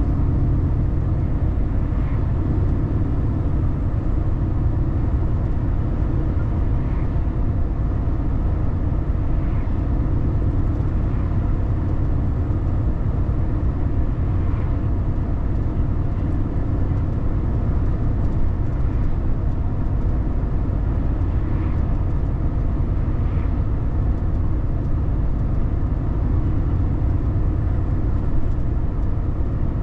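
Car driving at a steady speed: a constant low rumble of engine and tyre noise on the road, with a few faint small ticks.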